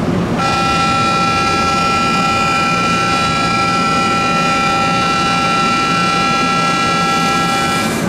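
Station platform departure bell sounding before a train leaves: one steady ringing tone of several fixed pitches that starts about half a second in, holds for about seven seconds, then cuts off suddenly near the end.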